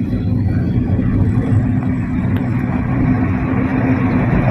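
Steady low rumble of a moving car's engine and tyres on the road, heard from inside the cabin, with a faint steady hum under it.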